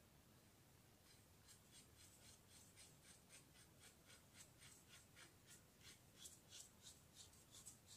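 Faint rhythmic scraping of a T-handled hand tool worked back and forth on a metal part, about three strokes a second, starting about a second in and growing louder toward the end.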